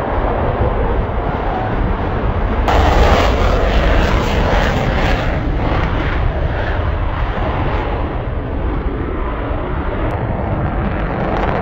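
Eurofighter Typhoon's twin turbofan jet engines at takeoff power, a loud rough roar that jumps sharply louder about three seconds in as the jet passes, then eases as it climbs away.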